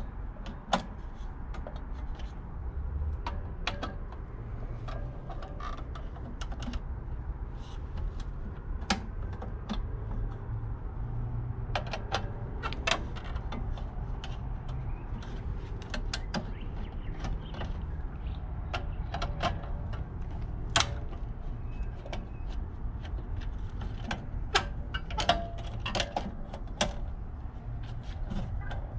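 A screwdriver working the terminal screws of a mechanical time switch to free its wires: scattered small metallic clicks and taps, a few louder ones, at irregular intervals over a steady low rumble.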